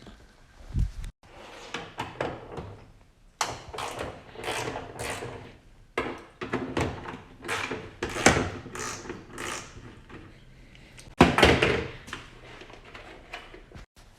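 Knocks, clicks and scraping of hand tools and fasteners being worked, as screws and clips are taken out of a car's front bumper. It is a string of short noisy bursts with a low thump about a second in and a louder burst near the end, broken off by abrupt cuts.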